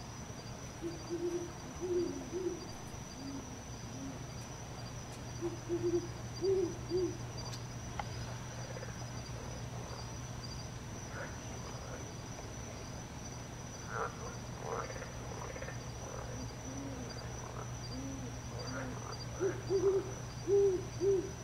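Night ambience: an owl hooting in several short, low series of notes, over a steady high insect trill and a steady low hum. A few brief higher calls come in the middle.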